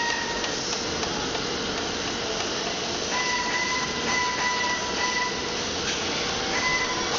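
Steady machinery noise with a hiss, and a whine that starts and stops several times.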